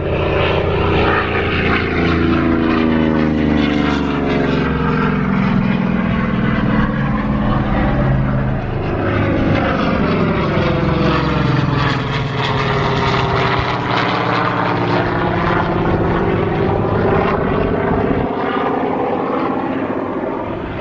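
Aircraft flying low past: a loud engine drone whose pitch falls steadily over the first several seconds as it goes by, followed by a sweeping whoosh as the sound swells again around the middle.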